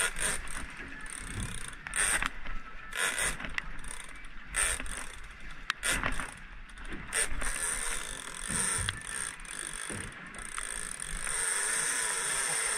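Big-game fishing reel being wound in short, irregular bursts, its gears and clicker ratcheting as line is retrieved on a hooked marlin. The ratcheting becomes steadier near the end.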